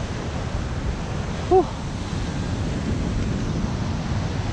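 Sea surf washing on a rocky shore, with wind rumbling on the microphone. A brief pitched chirp about a second and a half in.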